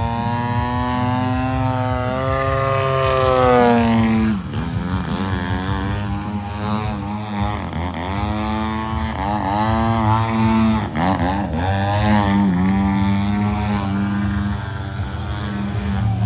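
Radio-controlled aerobatic airplane's engine and propeller in flight. The pitch slides down over the first few seconds, then rises and falls quickly, again and again, as the throttle changes through the manoeuvres.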